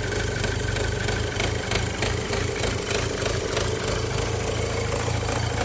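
The 2.0-litre turbocharged four-cylinder of a Mk5 Golf GTI idling steadily, with a regular light ticking. The owner puts the ticking down to a timing issue: the tensioner pin keeps hitting against a neighbouring part.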